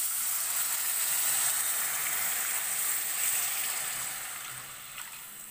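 Water poured in a stream into a hot pan of fried peas, tomato and spice masala, splashing and sizzling, the noise dying down over the last second or so as the pouring ends.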